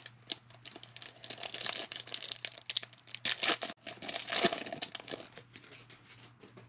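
Wrapper of a 2020 Bowman baseball card pack being torn open and crinkled by hand: a dense, irregular crackling that dies away near the end.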